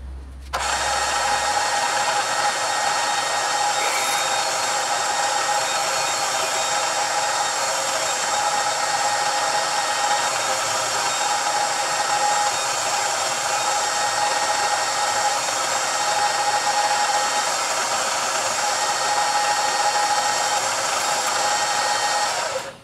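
Milling machine spindle running steadily as a twist drill bores a cross hole into a 1018 cold-rolled steel fixture stop held in a vise, a whine of motor and gears over it. It starts suddenly about half a second in and stops just before the end.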